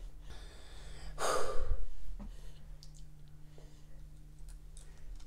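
A person's loud, breathy exhale, like a huff or sigh, about a second in, with quieter breaths around it, a reaction to tasting a jelly bean.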